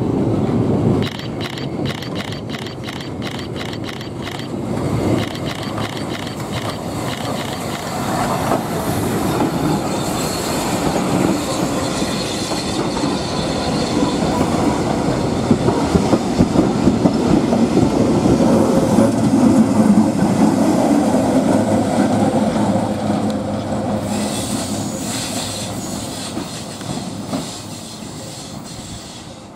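Heritage train passing at speed, hauled by Metropolitan Railway steam tank locomotive No. 1 with wooden-bodied carriages and an electric locomotive at the rear. Its wheels rumble and click over the rail joints, louder as the carriages go by, then fade away near the end.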